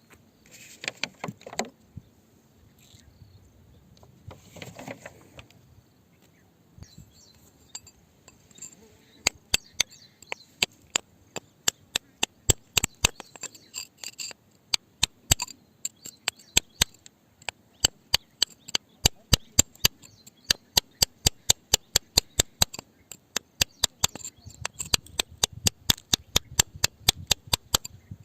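A hammer striking rock over and over: sharp, clinking taps about two a second, starting about nine seconds in, after two brief rustling scrapes.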